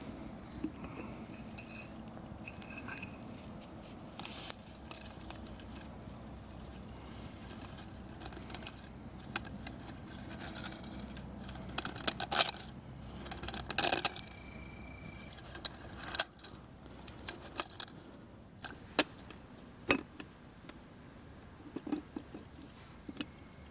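Metal camp cooking pot and lid being handled: scattered clinks, knocks and scrapes of metal on metal, busiest in the middle, with a brief ring about 14 seconds in. Dry spaghetti is being pushed into the pot of water.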